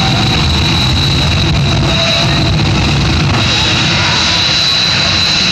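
Jet engine of a jet-powered fire truck running loud and steady, with a high-pitched turbine whine that edges up in pitch near the end.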